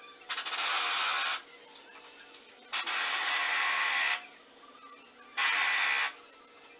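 Three bursts of loud, steady hissing, each about a second long, the middle one the longest.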